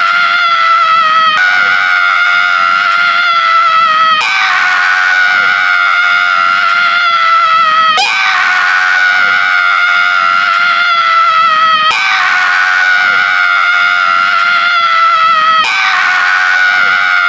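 A man's loud, high-pitched scream held on one steady note, breaking off and starting again about every four seconds.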